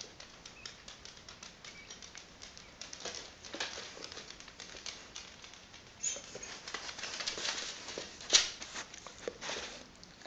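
Dog and cat claws clicking and skittering on a wooden floor in quick, irregular taps, with a louder knock a little after eight seconds in.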